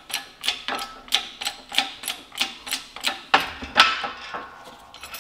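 Hand pump of a shop press's hydraulic bottle jack being worked by its handle, clicking about three times a second. About three and a half seconds in comes a louder clunk as the polyurethane diff-mount bushing, under load and off centre, cocks sideways and slips out of its bore.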